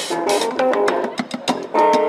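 Funk street jam: a bass guitar played through effects pedals, picking chord-like riffs, over drumsticks beating a steady rhythm on upturned plastic buckets. A cymbal on the ground is struck at the start and rings briefly.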